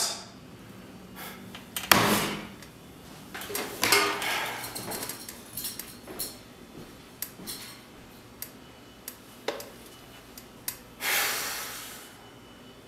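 Scattered small clicks, knocks and rustles of people moving around a table and handling things. There are a couple of longer rustles in the first few seconds and a louder rush of noise about eleven seconds in.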